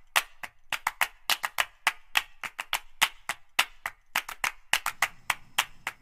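Percussive intro music: a quick, uneven pattern of sharp clap- and wood-block-like hits, about four or five a second.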